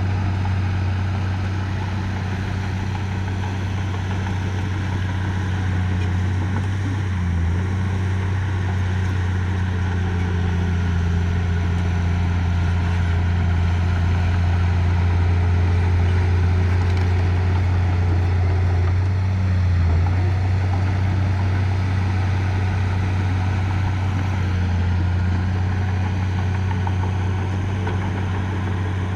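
Diesel engine of a heavy earthmoving machine running steadily with a low, even drone that wavers briefly twice.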